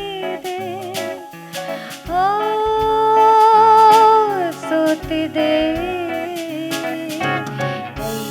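Live jazz performance: a woman singing a song melody with vibrato over a band with bass, guitar and drums. About two seconds in she holds one long, loud note for over two seconds before the melody moves on.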